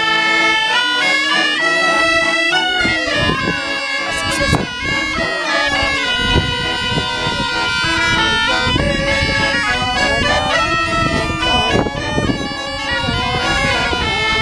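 Two small bagpipes and a button accordion playing a tune together, the pipes' reedy melody over a steady drone.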